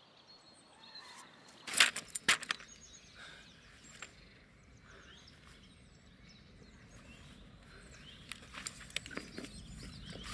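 Outdoor ambience with faint bird chirps. A sharp knock comes about two seconds in, followed by a few lighter clicks, and soft rustling and clicks build towards the end.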